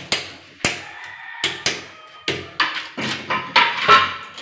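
Hand hammer striking concrete and mortar at the base of a tiled wall, chipping it away: about ten sharp knocks at an uneven pace.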